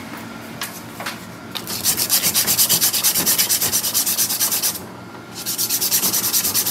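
Strip of abrasive cloth being pulled back and forth around the steel shaft of a small go-kart engine, shoeshine-style, scrubbing the rust off the shaft. It makes an even rasping at roughly six or seven strokes a second, in two runs with a brief pause just before the end.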